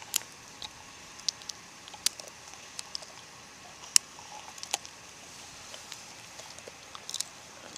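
A pit bull–type dog eating food off gravel: scattered, irregular sharp crunches and clicks.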